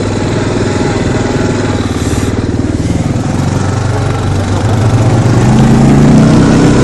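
CF Moto 500 4x4 ATV's single-cylinder four-stroke engine running with a rapid pulsing beat; about five seconds in it speeds up and gets louder as the throttle opens.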